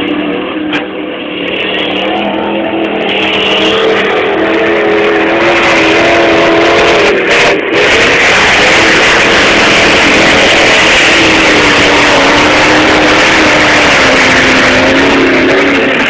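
Ford Explorer's engine revving hard as it drives through a mud pit, its pitch wavering and easing down a little near the end, over a loud rushing noise that builds after the first few seconds.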